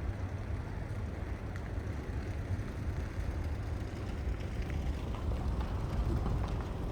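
Steady outdoor ambience: an even noise, heaviest in a low rumble, with a few faint ticks.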